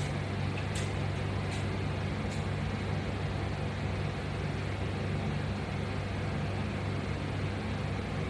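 A steady low mechanical hum over a constant background noise, with a few faint clicks in the first couple of seconds.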